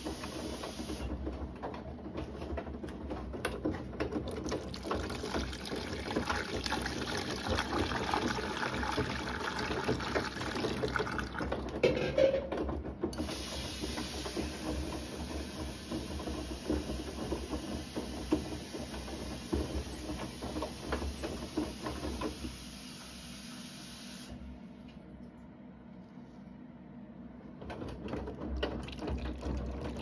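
Bosch front-loading washing machine in its wash cycle: the drum turning, laundry sloshing and splashing through soapy water. The tumbling pauses for a few seconds near the end, then starts again.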